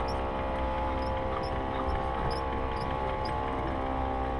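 Honda 90 outboard motor running steadily at low speed, with a faint high squeak repeating about every half second.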